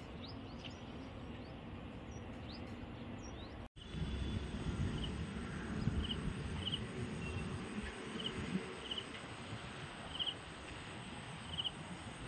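Outdoor background sound: a steady hiss with faint, high little chirps. After a sudden cut about four seconds in, a low rumble on the microphone joins a faint chirp that repeats about once a second.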